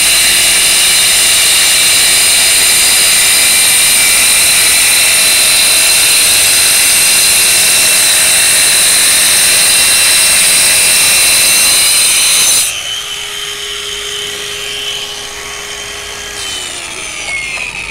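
Boda twin-blade brushless wall chaser cutting a wet groove in a brick wall: a loud, steady high whine. About twelve and a half seconds in, the blades come out of the cut and the sound drops suddenly to the motor running free. Near the end the pitch falls as the blades wind down.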